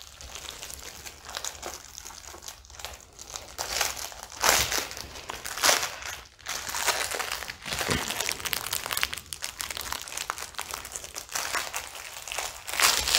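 Clear plastic packaging crinkling and crackling as it is worked off a rolled diamond-painting canvas, with irregular sharp crackles over a steady rustle.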